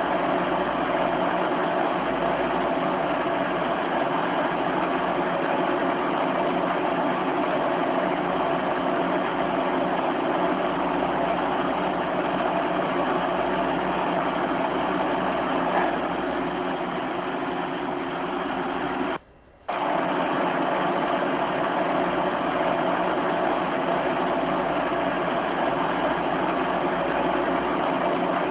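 Steady, unvarying hiss with a low hum underneath, with no distinct events in it. It cuts out for about half a second about 19 seconds in, then resumes unchanged.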